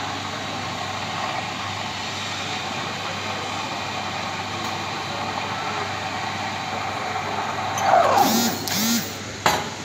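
Espresso machine steam wand hissing steadily as it steams milk in a stainless steel pitcher, the milk swirling. Near the end come a couple of louder, harsher bursts with a brief wavering squeal, and a sharp sound just before the end.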